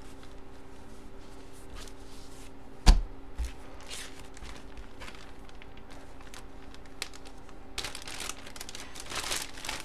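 Rustling and crinkling of a football jersey and its bag being handled and packed, with one sharp knock about three seconds in and a longer burst of rustling near the end, over a steady faint hum.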